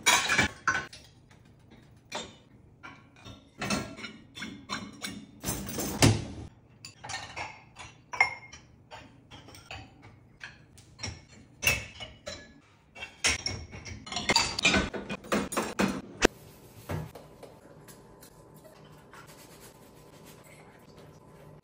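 Dishes, glasses and pots clinking and knocking against each other and against the wire racks of an open dishwasher, in many sharp strikes. Near the end this gives way to a quieter, steady hiss of scrubbing at the kitchen sink.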